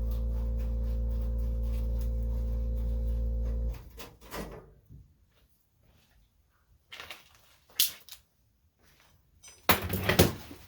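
A steady electrical hum cuts off abruptly a little over a third of the way in. Scattered small clicks of tools and metal parts being handled follow, with a sharp click and then a louder clatter near the end.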